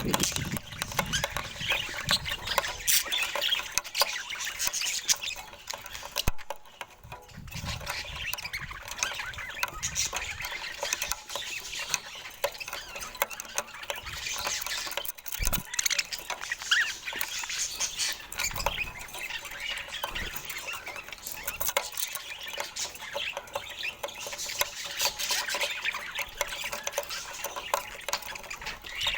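Budgerigars chirping and chattering in a continuous, busy stream of small calls, with a brief lull partway through.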